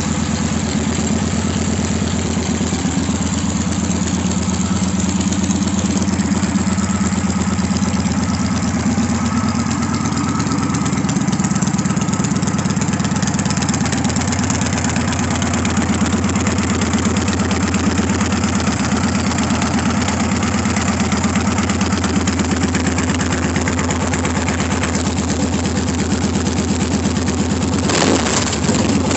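Victory Hammer's 100-cubic-inch V-twin idling steadily through heat-wrapped exhaust pipes, with a brief louder patch near the end.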